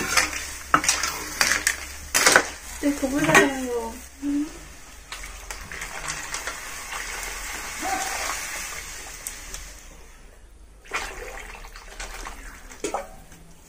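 A ladle knocking and scraping against a metal wok, then water poured from a steel mug into the curry, splashing steadily for several seconds from about five seconds in. A few more knocks of metal near the end.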